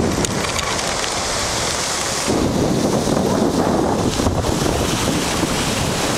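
Wind buffeting the microphone of a camera riding on a moving land yacht: a steady, loud rushing noise that turns heavier and lower about two seconds in.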